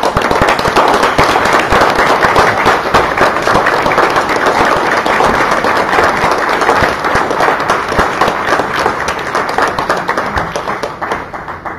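Audience applause: many hands clapping together, tapering off near the end.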